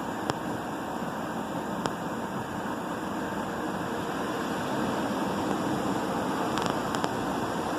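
Christ automatic gantry car wash running over a car: rotating brushes and water spray make a steady hiss that grows a little louder about five seconds in, with a few sharp ticks.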